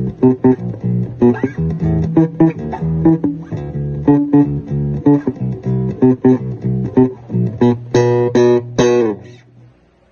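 Fernandes Revolver series four-string electric bass played fingerstyle: a quick run of plucked notes, with three brighter, sharper notes about eight seconds in. The last low note then dies away just before the end.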